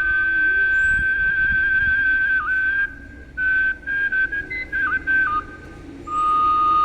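A whistled, flute-like melody of long, steady high notes that step up and down in pitch, broken by short pauses.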